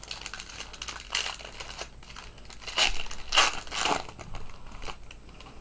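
Foil trading-card pack being torn open and its wrapper crinkled, as a dense crackle of small rustles with a few louder crinkles a little past the middle.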